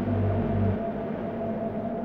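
Eerie droning ambient music made of several steady low tones; the deepest tone drops out about three-quarters of a second in.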